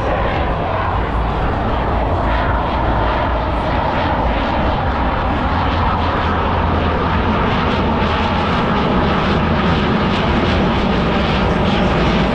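RAAF F/A-18F Super Hornet's twin jet engines at display power: a loud, steady rushing noise.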